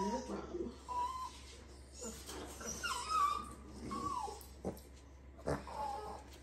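Puppy whining for attention in a string of short, high cries that slide up and down in pitch. Two sharp knocks sound near the end.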